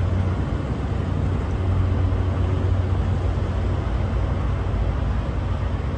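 Semi truck's diesel engine idling: a steady low hum with a rumbling undertone.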